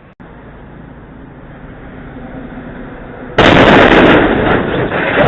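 Cartoon soundtrack: a rushing noise swells for about three seconds, then a sudden, very loud explosion-like blast hits and slowly dies away.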